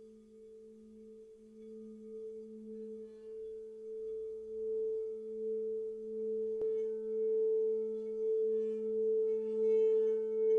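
Tibetan and crystal singing bowls ringing with two sustained tones, a low one and one about an octave above, wavering slowly and swelling gradually louder. A light strike about six and a half seconds in adds faint higher overtones.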